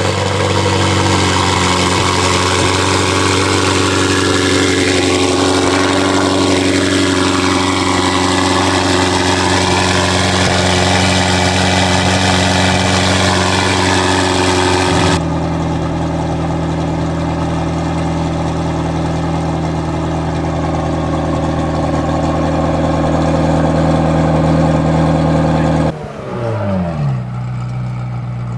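McLaren 720S twin-turbo V8, just started, idling loudly and steadily through a non-valved titanium double X-pipe exhaust with free-flow downpipes. The idle steps down in speed about halfway through, then drops again with a brief falling pitch near the end and settles quieter.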